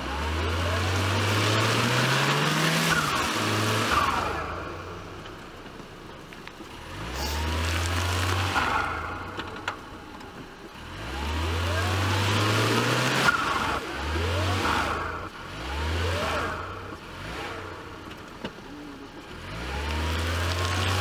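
Mitsubishi Pajero Mini's small 660 cc engine revving in about six separate bursts, the pitch climbing in each one before it drops back. The vehicle is bogged down in deep mud and is trying to drive out.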